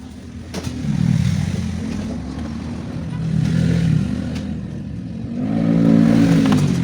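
A motor vehicle's engine rising and falling in pitch in three swells, the last near the end the loudest.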